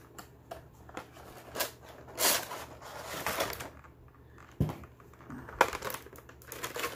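A Funko Pop's cardboard box and plastic packaging being handled and opened: crinkling and scraping with scattered small clicks, and a sharp knock about five and a half seconds in.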